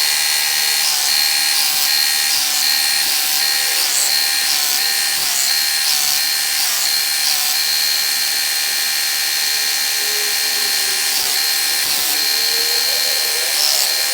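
Work Sharp Ken Onion Edition belt knife sharpener running with its red polishing belt fitted, a steady high motor whine with slight wavers as a knife edge is stropped on the belt.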